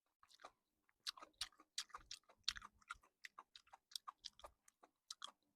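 Close-up chewing of juicy citrus segments: soft, irregular wet smacks and clicks of the mouth, faint.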